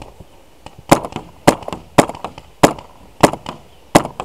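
Paintball marker firing six single shots close by, a sharp pop about every 0.6 s, starting about a second in.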